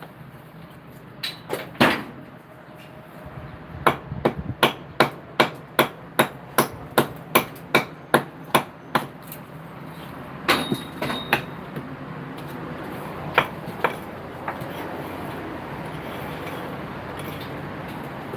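Hand hammer blows: two strikes, then a steady run of about a dozen strikes at two to three a second, then a few scattered strikes.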